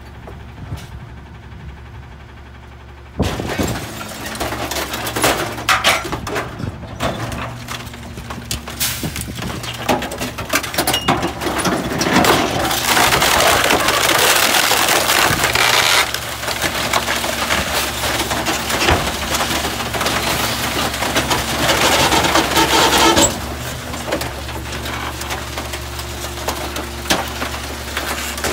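McNeilus rear-loader garbage truck's packer blade compacting a load of wooden crates and boards, the wood cracking and splintering as it is crushed over the engine and hydraulics working under load. The crushing starts suddenly about three seconds in, is loudest in the middle, and eases near the end as the blade finishes its sweep.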